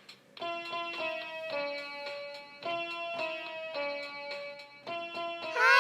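Short intro jingle of plucked, guitar-like notes playing a simple melody, ending in a brief, loud sliding sound that rises and falls.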